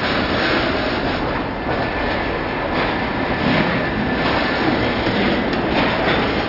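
Freight train of centerbeam lumber flatcars rolling past at close range: a steady rumble of steel wheels on the rails with the clicking of wheels over rail joints.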